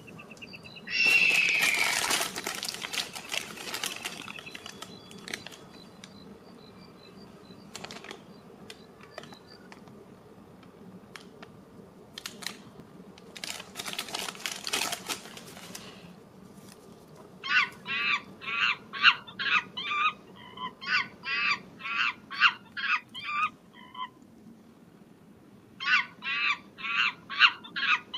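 Thin plastic blind-bag wrapper crinkling and rustling in the hands, loudly about a second in and again at around 13 to 15 seconds. From about 17 seconds comes a fast series of short repeated animal calls, two or three a second, in two bouts.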